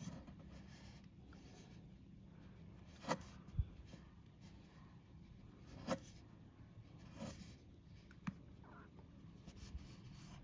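Faint handling sounds of fingers working braided fishing line through a fishhook's eye: a few soft rubs and about five short clicks, one of them a low thump, over a steady low hum.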